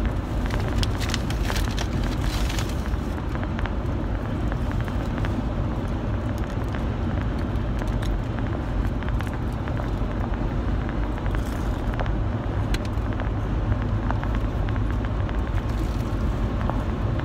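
Steady road and engine rumble inside a moving car's cabin, with a few crinkles of food wrappers in the first three seconds.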